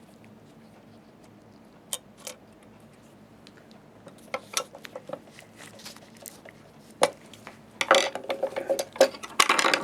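Small metal parts clinking and scraping as a plate washer and screw are fitted back onto a slit lamp base's elevation spindle: a few light clicks, then denser clinking with brief ringing in the last two seconds.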